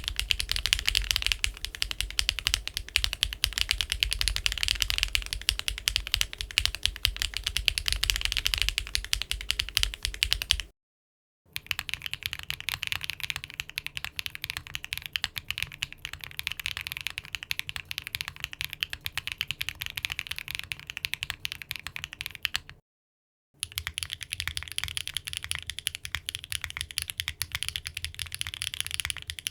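Typing on a mechanical keyboard fitted with HMX Macchiato linear switches: a fast, steady patter of key presses and returns. It comes in three runs with two short silent breaks, and the first run sounds deeper than the other two.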